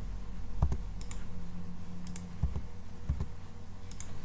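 Several scattered clicks from a computer mouse and keyboard, some sharp and paired, some duller knocks, over a low steady hum.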